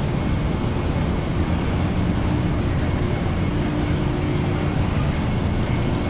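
Steady machinery din of a sawmill's conveyor line running, with a steady hum held throughout.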